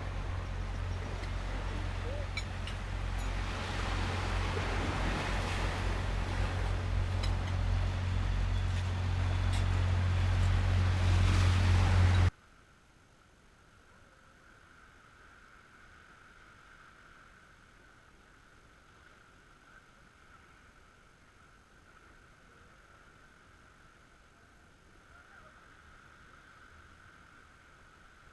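An engine running with a deep, steady drone, growing louder, then cut off abruptly about twelve seconds in. After that only a faint, steady high-pitched hum remains.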